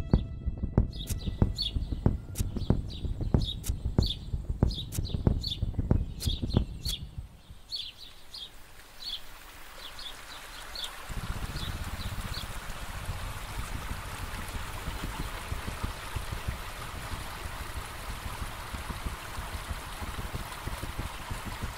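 Performance soundscape: a steady thudding beat of about two knocks a second with short bird chirps over it. The beat stops about seven seconds in, the chirps thin out by about twelve seconds, and a steady rush like flowing water takes over.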